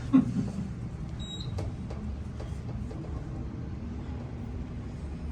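Otis Gen2 traction elevator: a thump just after the start as the doors shut, a short high beep about a second in, then the steady low hum of the cab travelling.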